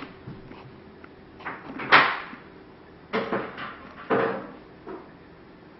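Plantation shutter louvers and frame being handled during repair: a few short knocks and rattling clatters, the loudest about two seconds in.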